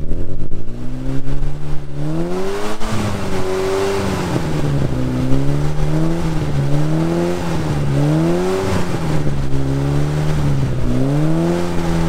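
Car engine revving up and down under theremin control: a theremin wired to the throttle cable is played by hand at its antenna, so the engine pitch rises and falls repeatedly in smooth swoops.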